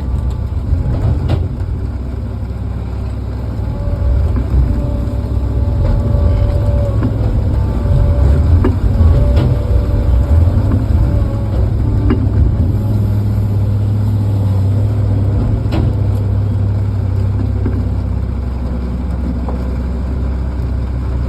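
Diesel engine of heavy logging equipment, a tractor or loader, running steadily with a deep rumble that swells for several seconds past the middle. A faint whine comes and goes, along with a few sharp knocks.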